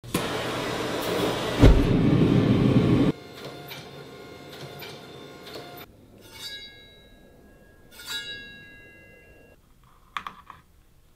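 A loud rushing hiss with a heavy thump about a second and a half in. Then a steel cleaver blade is struck twice and rings clearly each time, the ring dying away over a second or so. Near the end there are a few sharp cracks as the cleaver cuts into a plastic jug.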